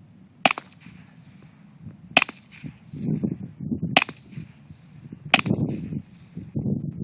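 Four suppressed shots from a Ruger Mark III 22/45 .22 LR pistol with an AAC Element suppressor, each a short sharp crack, about two seconds apart. A low rumbling noise rises and falls between the later shots.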